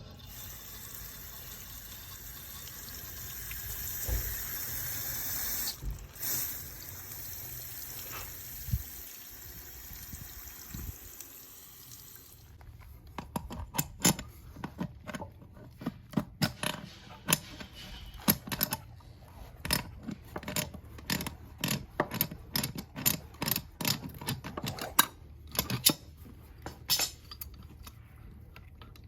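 Water running steadily for about twelve seconds, then a long run of irregular sharp clicks and knocks.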